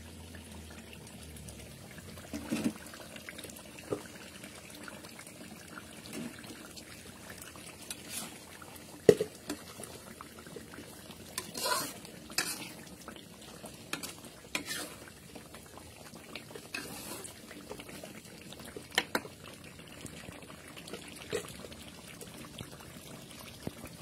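Metal spatula stirring chicken in a wok of simmering rendang sauce. It scrapes and knocks against the pan now and then, with the sharpest knock about nine seconds in.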